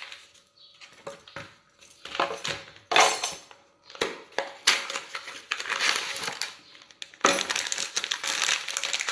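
Plastic packaging of cocoa powder rustling and crinkling as it is handled, in irregular bursts at first, then steady crinkling from about seven seconds in.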